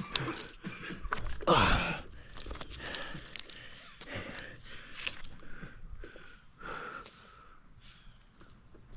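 Tree climber's gear handled at close range: scattered light metallic clicks and clinks of carabiners and hardware, with a louder rustle or rub about a second and a half in.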